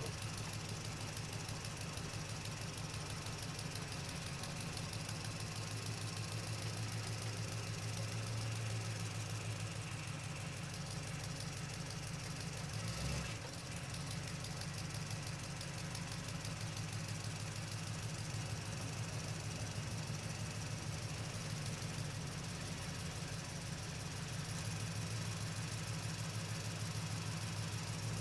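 Truck engine running steadily with a low drone and a fast, even pulse from its firing. It is briefly interrupted about halfway through.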